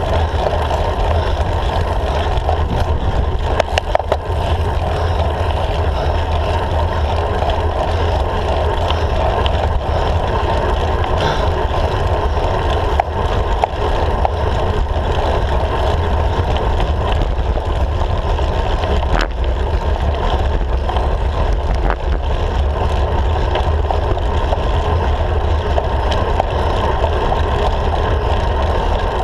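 Steady wind rush and road rumble picked up by a camera on a road bike's handlebars while riding, with a few faint knocks.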